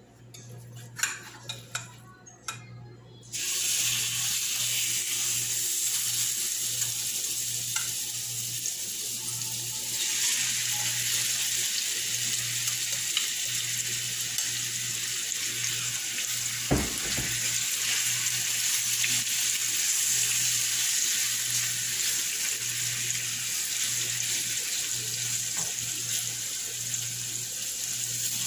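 Curry-seasoned chicken pieces sizzling in hot oil in a frying pan: a few knocks, then a steady sizzle starts suddenly about three seconds in and grows fuller about ten seconds in as more chicken goes in, with a single knock of the utensil against the pan partway through.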